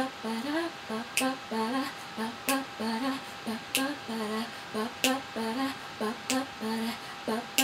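A woman humming a wordless a cappella intro in short low notes, with a sharp click keeping the beat about every second and a quarter.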